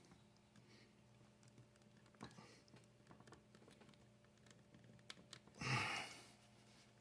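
Faint scattered clicks and scrapes of a threaded pipe nipple being forced into an untapped hole in a PVC cap, with one short, louder burst of noise about six seconds in.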